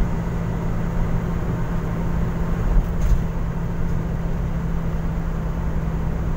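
Steady engine and road noise inside the cabin of a moving vehicle, with a constant low hum. A brief knock comes about three seconds in.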